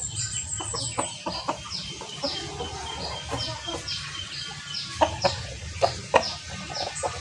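Chickens clucking and calling, with a steady run of short high peeps that fall in pitch about twice a second, and scattered sharp knocks that grow louder near the end.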